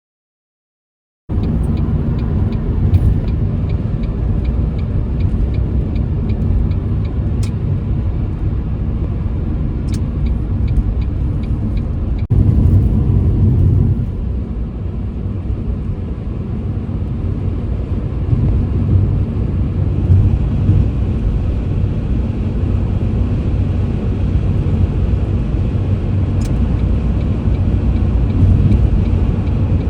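A car driving on the road, with steady engine and tyre rumble. It starts abruptly about a second in and changes abruptly about twelve seconds in.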